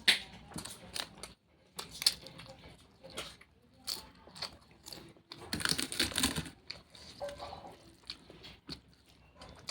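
Close-mic eating sounds of a person chewing spicy jackfruit curry: irregular wet mouth clicks and smacks. A louder, noisier stretch of chewing comes a little past halfway.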